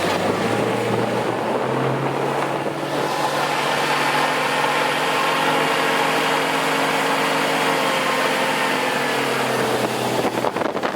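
Iguana amphibious boat's engine running steadily while it drives on its tracks during a beach launch, a level hum with several tones. About ten seconds in the hum drops away and wind begins buffeting the microphone.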